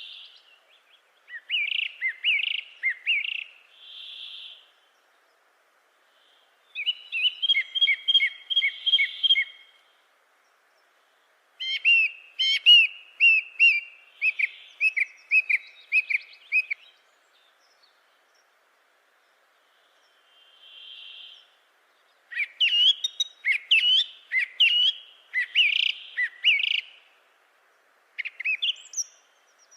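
A songbird singing in phrases of quick chirps and short whistled notes. There are five bursts of a few seconds each, with pauses between them.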